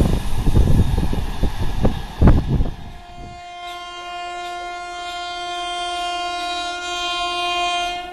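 A WAP-7-hauled express train rumbling and clattering past at speed, cutting off suddenly about three seconds in. Then an approaching WAP-7 electric locomotive sounds one long, steady horn blast of about five seconds. The blast grows slightly louder and stops near the end.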